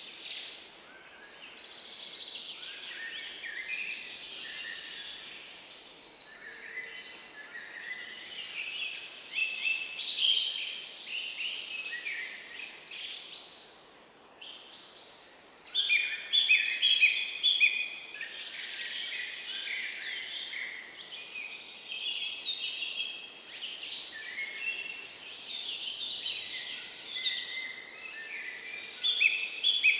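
Several small birds chirping and trilling at once in a dense, continuous chorus of short high chirps. It thins briefly about halfway through, then comes back louder.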